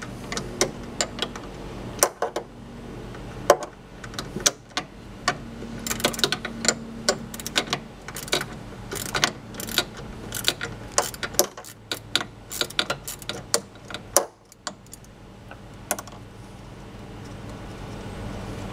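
Ratchet wrench with a 10 mm socket clicking in short, irregular runs as it works a screw loose, with the odd knock of the tool against metal. The clicking stops about sixteen seconds in.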